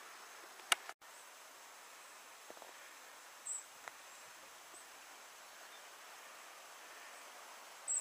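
Faint outdoor ambience: a steady hiss with a few short, very high-pitched chirps from a small bird or insect. A sharp click and a brief dropout come about a second in.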